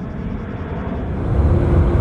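Jet airliner engines, a steady low rumble overhead. About a second in, it switches to a louder rumble with a steady hum: the four engines of an Airbus A380-800 on approach.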